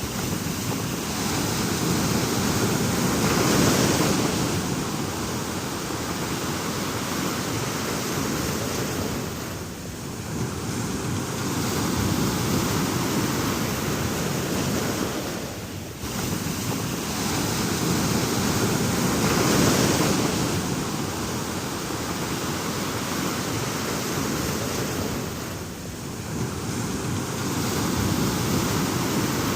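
Ocean surf: a continuous rush of waves breaking and washing in, swelling to louder surges and easing back. The same stretch of surf repeats about halfway through.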